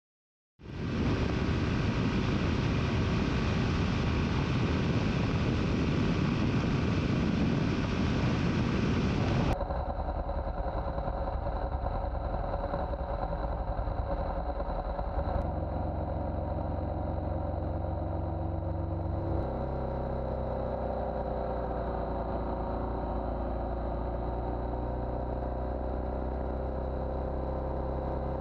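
A BMW R1200GS Adventure motorcycle's boxer-twin engine running while riding, with heavy wind rush. About a third of the way in the wind noise drops off suddenly, leaving the engine's steady hum and a thin high whine. The engine pitch then steps down twice.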